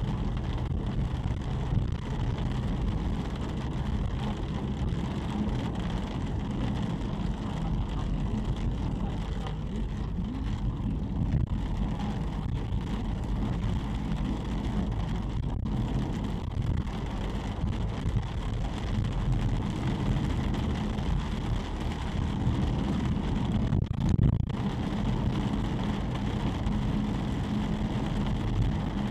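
Steady engine and tyre noise inside a moving car's cabin, driving on a rain-wet road: an even low drone.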